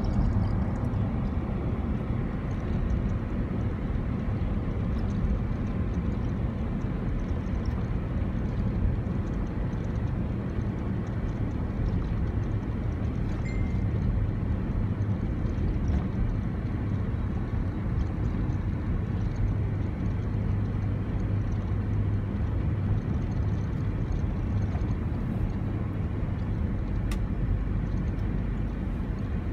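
Steady engine and tyre rumble of a car driving, heard from inside its cabin: an even low hum with no sharp events.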